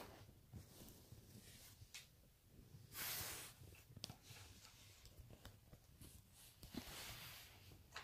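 Near silence, broken by two soft rustles, one about three seconds in and one about seven seconds in, and a few faint clicks: fabric and phone-handling noise as the phone moves around the cat.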